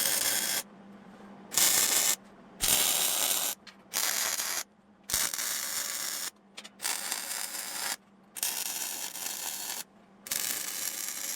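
MIG welder running solid wire with shielding gas on sheet steel, crackling in a series of short weld runs. There are about eight bursts of a second or so each, starting and stopping sharply with brief pauses between, over a faint steady hum.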